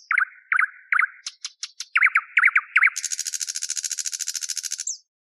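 Common nightingale singing: a series of repeated short whistled notes with thin high ticks, then a fast, even rattling trill of about two seconds that cuts off suddenly.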